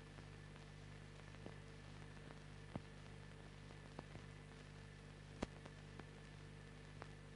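Near silence on an old film soundtrack: a steady low hum and hiss with a handful of faint, scattered clicks and pops, the sharpest about five and a half seconds in.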